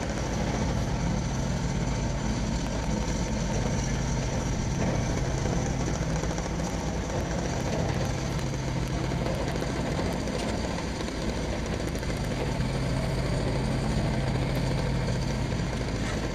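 A construction machine's engine idling steadily, a low, unchanging hum.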